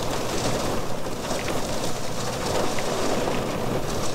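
Rain falling steadily on the car's roof and windscreen, a dense crackle of many small drops heard from inside the cabin.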